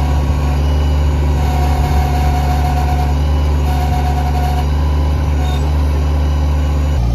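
Kubota BX24 compact tractor's three-cylinder diesel engine running steadily, with a higher whine coming and going twice; the engine note shifts near the end.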